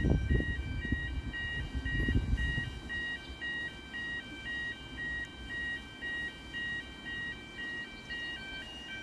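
An electronic two-tone warning signal at the canal lock, stepping back and forth between a higher and a lower chord a few times a second, sounding as the lock gates open. A loud low rumble covers the first three seconds, then fades.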